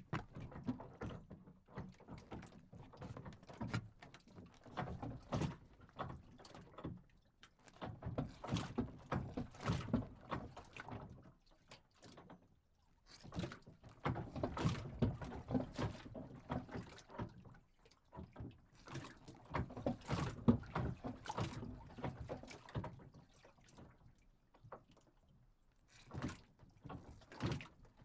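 A dock moving on the water, giving irregular clusters of low wooden knocks in bouts of a few seconds with short lulls between.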